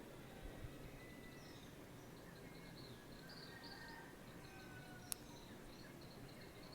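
Faint pre-dawn chorus of birds waking up: scattered short chirps and a few thin whistled notes over a steady low background hiss. A single sharp click sounds about five seconds in.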